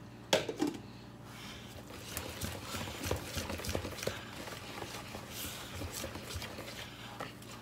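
Pancake batter being stirred in a bowl with a utensil: irregular soft taps, clicks and scraping, with one sharper knock just after the start.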